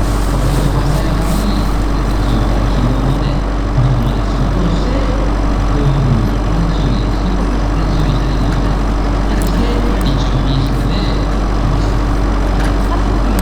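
Radio-controlled scale model Bell 230 helicopter running, a steady mechanical hum with rotor noise and a constant pitch.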